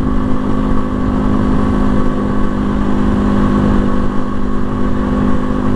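Janus Phoenix 250 motorcycle's single-cylinder engine running at a steady cruising speed, its pitch holding level, with wind rumble on the microphone.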